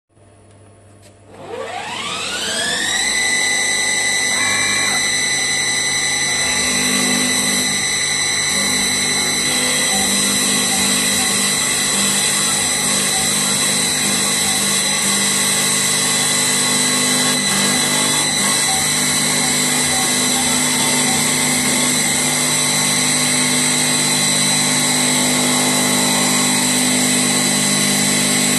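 CNC wood lathe's motor spinning up, its whine rising steeply in pitch from about a second in and then holding a steady high pitch. A lower hum joins about seven seconds in.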